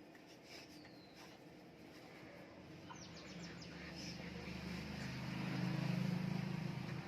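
Hot air rework gun blowing, a steady hum with airy hiss that swells louder through the second half. A few bird chirps sound in the first half.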